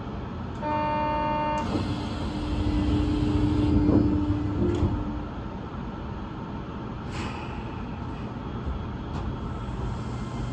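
Electronic signal tones from a stopped Osaka Metro New Tram train. A short multi-pitched tone comes about half a second in, then a lower steady tone is held for about three and a half seconds, over a low steady hum. Two sharp clicks follow later.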